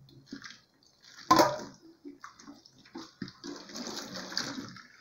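Water poured from an aluminium pot into a stainless steel sink, splashing onto soapy water, with a steady pour near the end. A loud knock comes about a second in.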